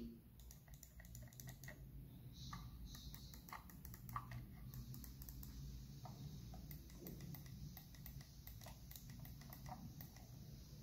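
Razer DeathAdder Elite gaming mouse being clicked over and over: many faint, quick clicks from its mechanical button switches.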